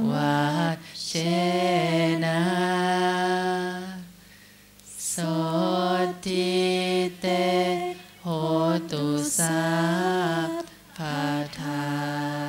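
Buddhist chanting in Pali: slow, melodic phrases held on long tones that glide gently in pitch, with short breaths between phrases and one longer pause about four seconds in.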